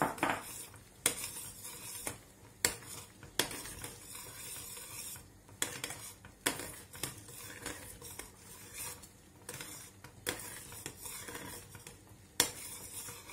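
Metal spoon stirring soup in a stainless steel saucepan, clinking sharply against the pot's sides at irregular intervals, roughly every one to two seconds.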